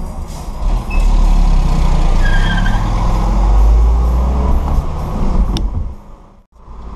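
Engine and road rumble of traffic heard from inside a moving car. The deep rumble swells about a second in, then drops out briefly near the end.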